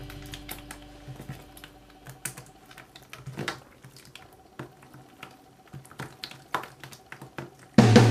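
Hands squishing and kneading sticky purple glitter slime on a table, making irregular small wet clicks and crackles. A music track fades out in the first second, and loud drum-led music starts abruptly near the end.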